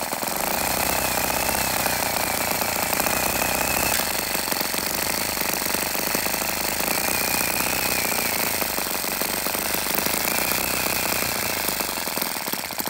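Engine of a brass scale-model tractor running steadily with a fast, dense rattle. A faint wavering whine comes and goes over it.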